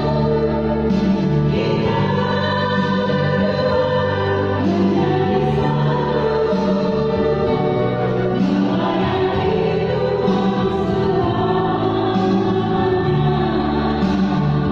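Virtual choir singing in several voice parts, holding long sustained notes.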